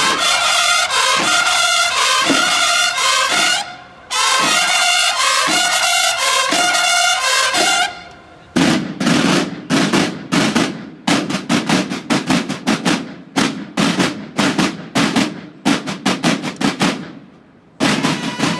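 Mexican banda de guerra: massed bugles sound two phrases of a call, then the snare drums take over with a fast march cadence. The drums break off briefly, and bugles and drums come back in together near the end.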